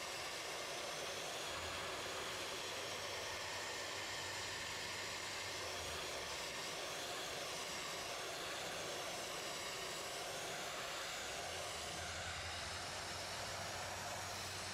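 Dry ice blaster nozzle firing a continuous compressed-air jet of dry ice pellets, a steady loud hiss, as it blasts tar buildup off a painted lower body panel.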